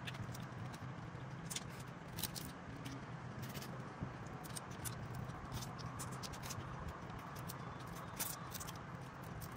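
Cooked crab shells being cracked and pulled apart by hand: small irregular clicks and crackles, over a steady low hum.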